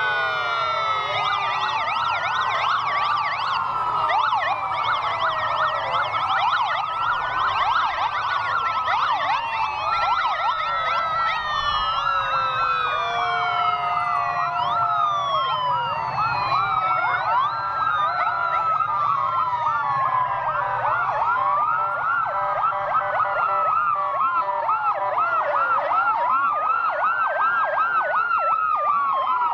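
Several police sirens sounding together from a passing police motorcycle escort and police vehicles: slow rising-and-falling wails overlapping with fast yelps, steady throughout.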